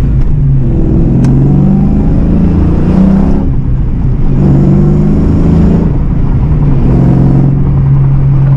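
Fox-body Mustang's 5.0 V8 accelerating, heard from inside the cabin. The engine note climbs in pitch in several pulls, dropping back between them, then holds at a steady pitch near the end.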